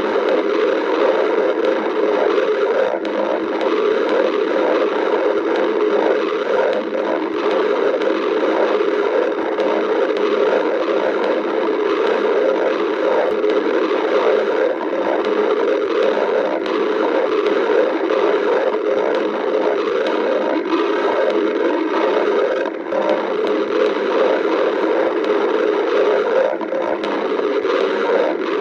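Human stomach growling: a continuous gurgling rumble with many quick small flutters running through it.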